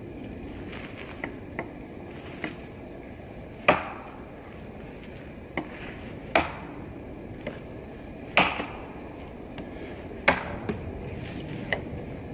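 A Bark River Bravo Crusader chopping knife strikes a dry, fallen log. Four hard chops land about two seconds apart, with lighter knocks of the blade in between.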